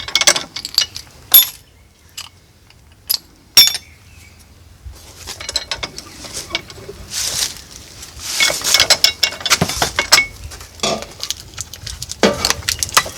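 Metal engine parts and hand tools clinking and knocking together as they are handled. A few sharp clanks in the first four seconds, then a busy stretch of small clinks and rattles.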